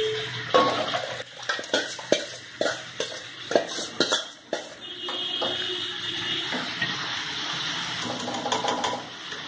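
A steel spoon clinking and scraping against a steel bowl as mashed dal is scraped out of the bowl into a pot, a quick run of knocks and taps for the first four seconds or so. A steadier hiss follows for the rest.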